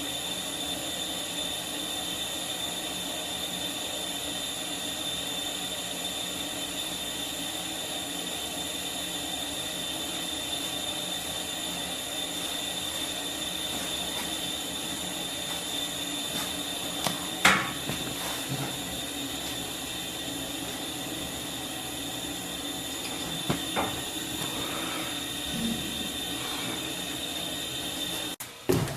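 Steady whirring hum of a kitchen exhaust fan running, with a sharp clink of cookware about halfway through and a few lighter knocks a little later.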